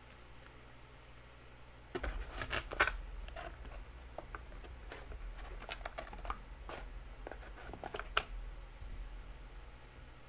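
Trading cards and their packaging being handled: a run of rustles, crinkles and small clicks that starts about two seconds in, over a low rumble.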